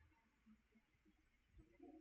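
Near silence: room tone, with only a faint brief low murmur near the end.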